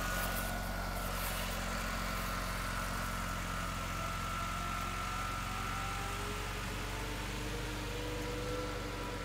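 Small garden tractor's engine running steadily, with a high whine over the engine hum and a few tones that slowly slide in pitch as it works.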